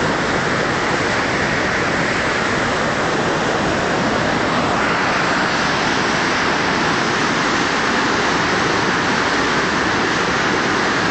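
Floodwater rushing down a swollen river, a loud, steady, unbroken rush of water.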